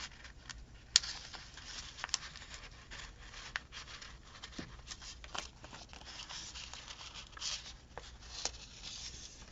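Thin paper stickers being picked and peeled off their backing sheet and handled, a run of small paper scrapes, rustles and light taps, with one sharper tap about a second in; the stickers are hard to lift and tear easily.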